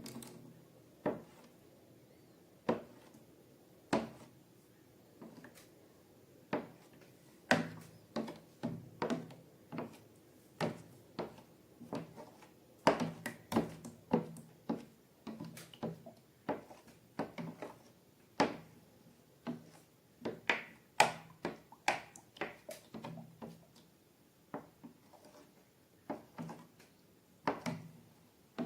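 Slime being squeezed and worked by hand, making irregular sticky pops and clicks, up to a few a second, with short quieter pauses.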